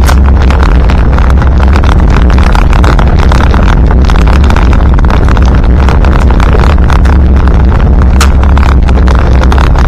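Land Rover Santana Series III's 2.25-litre four-cylinder diesel engine running under way, heard inside the cab as a loud, steady low drone with constant clatter and rattle. There is a single sharp click about eight seconds in.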